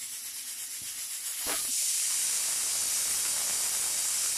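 Stovetop pressure cooker releasing steam through its whistle weight on a high flame: a steady high-pitched hiss that grows louder about a second and a half in. The cooker has reached full pressure and is whistling.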